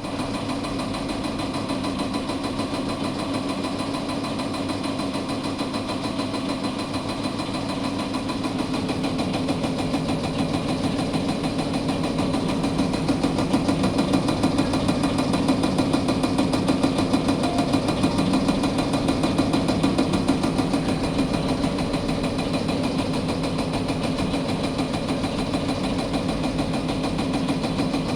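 Diesel engine running steadily with a fast, even clatter. It speeds up a little about ten seconds in and settles back near the end.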